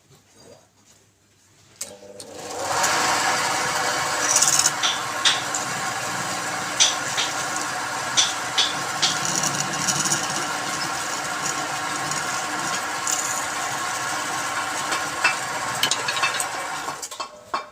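Wood lathe starting up about two seconds in and running with a steady hum, while a turning tool scrapes and clicks against the spinning wood; it winds down near the end.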